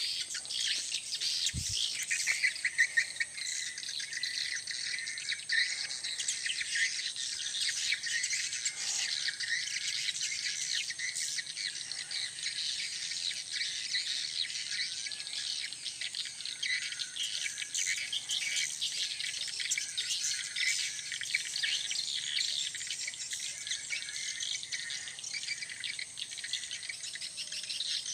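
Dense, continuous high-pitched chirping and trilling of birds and insects, over a steady shrill tone, with one short low thump about a second and a half in.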